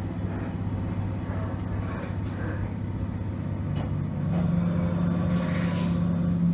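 Electric train heard from behind the driver's cab: a steady low hum with rumbling running noise, one tone of the hum growing louder about four seconds in.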